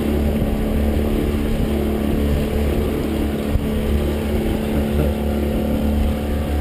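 Boat motor running steadily, with an uneven low rumble of wind and water beneath it.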